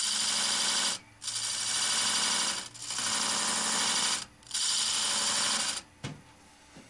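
A tool held against spinning catalpa wood on a wood lathe, scraping in four bursts of about a second or more each, with short breaks between them, over the lathe's faint hum. It is scoring grooves in the wood for a guitar-string wire burner to bite into.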